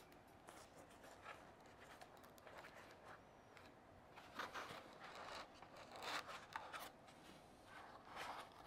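Faint handling of packaging: scattered short rubs and scrapes as the gimbal's main unit is worked out of its styrofoam case, the louder ones in the second half.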